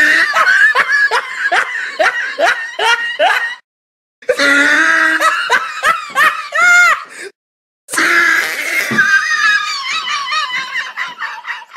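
People laughing hard in quick repeated pulses, in three short clips that each cut off abruptly with a brief silence between.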